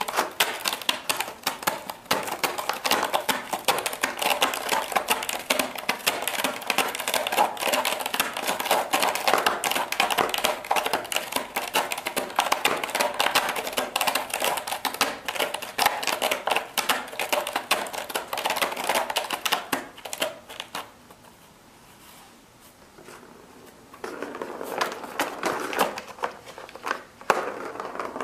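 A cat's claws scratching and raking at a corrugated cardboard scratch pad, a dense run of rapid clicks, with a pause of a few seconds about three-quarters of the way through before the scratching starts again.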